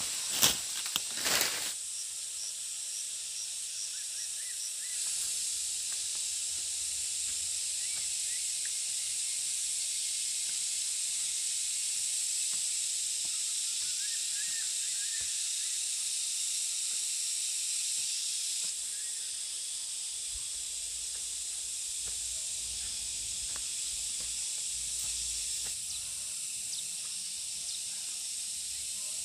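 Steady high-pitched hiss of outdoor background noise, a little louder from about five seconds in until about nineteen seconds. A few sharp clicks come in the first second and a half.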